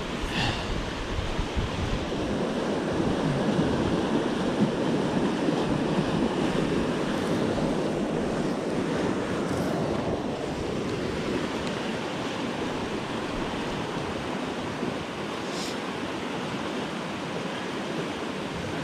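Swollen, fast river current rushing steadily past the bank, with some wind rumbling on the microphone.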